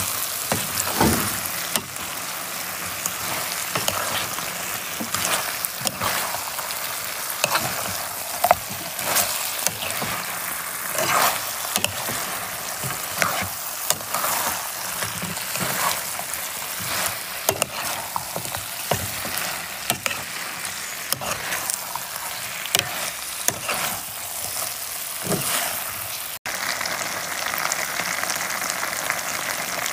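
Pieces of battered peacock bass and peppers sizzling in sweet and sour sauce in a frying pan, with a metal spoon stirring and scraping against the pan in frequent short clicks. The sound cuts briefly near the end, then goes on as an even sizzle.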